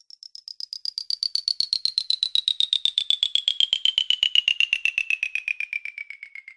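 A rapid pulsed tone, about ten pulses a second, gliding steadily down in pitch from high to middle over about seven seconds.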